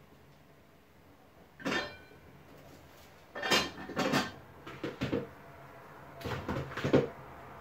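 Metal saucepans and a pot lid clattering on a stovetop in a handful of short, irregular bursts of knocks and scrapes.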